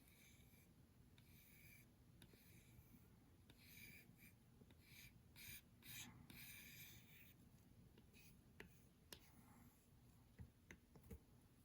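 Faint light scraping strokes of a pocketknife's Wharncliffe blade drawn along a sharpening surface while the tip is worked, a run of short strokes that stop about seven seconds in. A few sharp clicks follow near the end.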